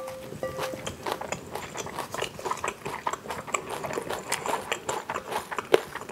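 Spoon scraping and clinking against a bowl while gathering up the last of the bibimbap, with close-miked chewing. It is a dense run of short scrapes and clicks, with a brief ring from the bowl right at the start.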